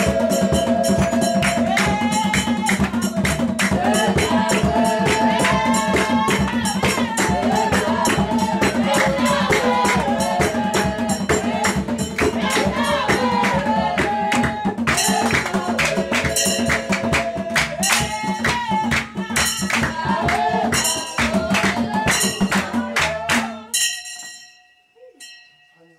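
Congregation singing a praise song, with shaken hand percussion keeping a dense, steady beat. The singing and percussion stop abruptly near the end.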